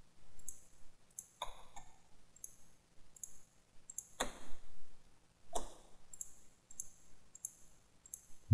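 Computer mouse clicking as objects are picked in a CAD program, short sharp clicks about twice a second, with two louder clicks about four and five and a half seconds in.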